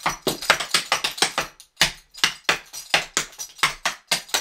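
Clogging shoe taps striking a wooden floor in a fast, even rhythm of about six taps a second: the steps, doubles, rocks and stamps of a clogging step routine. There is a short break about a second and a half in.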